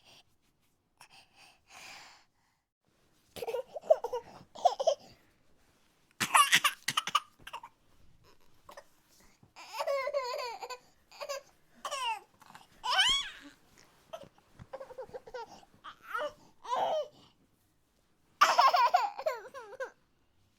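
A high-pitched, child-like voice making a series of short wordless vocal outbursts, each a second or two long with quiet gaps between, the pitch sliding up and down within each.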